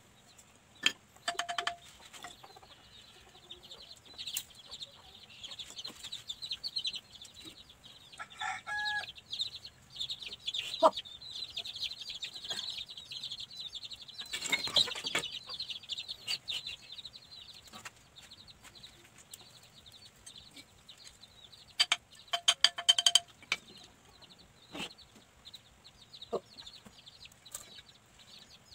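Chickens clucking, with high twittering chirps going on behind. Now and then come sharp wooden clacks of small bamboo and wooden pieces being handled, in a short cluster near 9 s, around 15 s and again at about 22–23 s.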